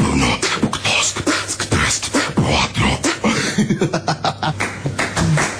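Beatboxing: a voice making rapid drum-like clicks and pops mixed with short voiced hums and pitch slides.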